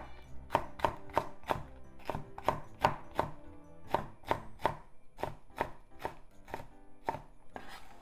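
Chef's knife slicing green bell pepper into thin strips on a wooden cutting board: a steady run of crisp knocks of the blade through the pepper onto the board, about three a second.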